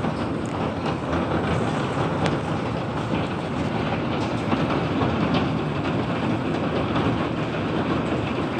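Pea-sized hail driven by strong storm wind, a steady dense clatter of many small impacts over a rushing noise.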